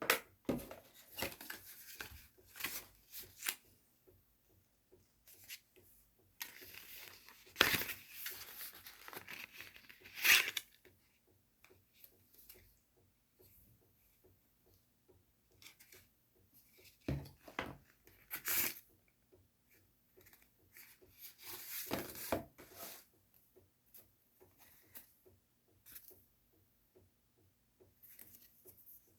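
Packaging being handled during a phone unboxing: tearing and rustling of paper or plastic film, with scattered sharp clicks and taps, a few of them louder.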